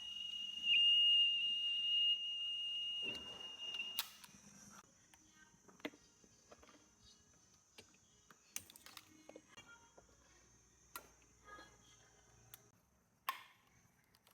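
Steady, high single-pitched test tone played back on the Casio TP-50 cassette recorder to set its tape speed after the belt change. About four seconds in it cuts off with a click, and faint scattered clicks of handling follow.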